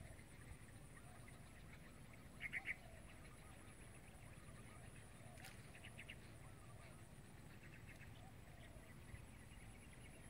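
Quiet open-air ambience with a steady high insect buzz. About two and a half seconds in, an animal gives a quick three-note call, the loudest sound here, and fainter short calls follow around six seconds in.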